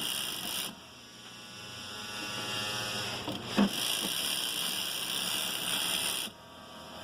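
Sunstar KM757 industrial lockstitch sewing machine test-running after its service: it runs, stops under a second in, builds back up to speed, then stops abruptly near the end. A single sharp click comes about halfway through.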